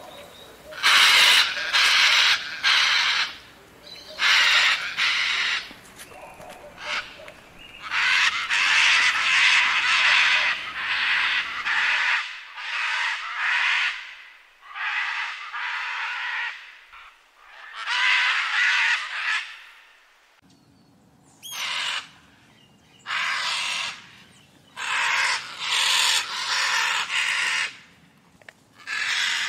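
Scarlet macaws giving loud, harsh, raspy screams in an irregular series, each call lasting from about half a second to two seconds, with short pauses between them.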